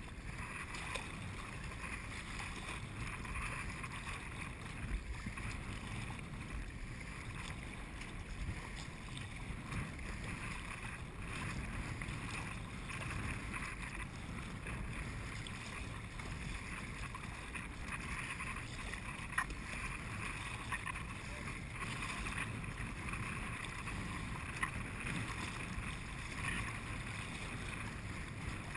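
Wind buffeting the microphone and choppy river water splashing along a sea kayak's hull as it is paddled: a steady rushing noise with a low rumble and a few small knocks.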